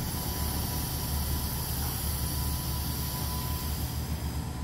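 Semi-truck's diesel engine running with a steady low rumble as it backs toward the dock, with an even high hiss over it.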